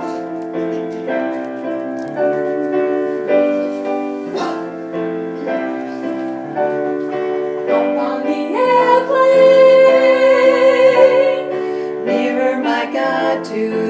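Piano or keyboard playing the introduction to a song, in chords that change about once a second. From about 8.5 to 11.5 s a louder, wavering note is held above the chords.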